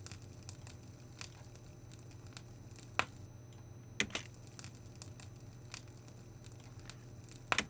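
Crackle removed by a decrackler, heard on its own in inverse mode: faint, sparse crackle with a few sharper clicks, the strongest about three and four seconds in, over a faint low hum.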